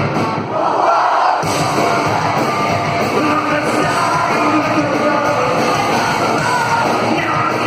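Live rock band playing loud, with a sung and yelled lead vocal. About a second in, the bass and drums drop out briefly, then the full band comes back in.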